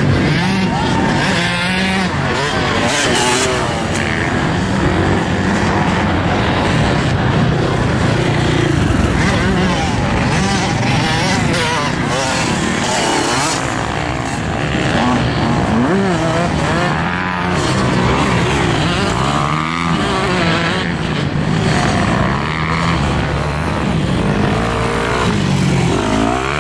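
Off-road dirt bike engines revving hard and changing gear as the bikes race over sand, their pitch rising and falling over and over, with more than one bike heard at once.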